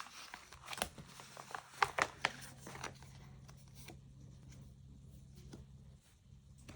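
Packaging being handled and opened: crinkling and tearing with sharp crackles and clicks, thickest in the first three seconds, then thinning to occasional light rustles.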